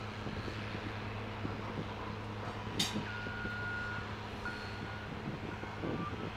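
Caterpillar 966F wheel loader's diesel engine running steadily. A single sharp bang comes a little before halfway, and then a reversing alarm sounds in long, evenly spaced beeps as the loader backs away from the pile.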